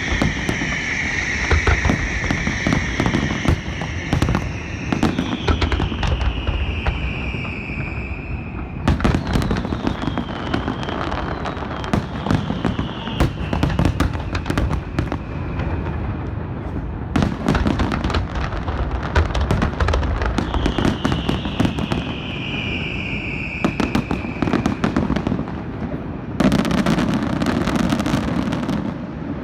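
Aerial fireworks barrage: a steady stream of booming shell bursts and dense crackling, with long falling whistling tones three times, getting louder and denser near the end.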